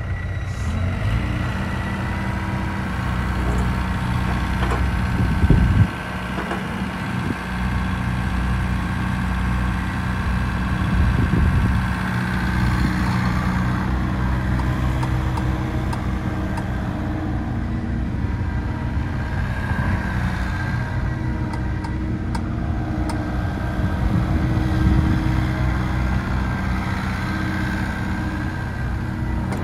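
IHI 80NS midi excavator's diesel engine running steadily. It briefly gets louder about five seconds in and swells a couple more times later.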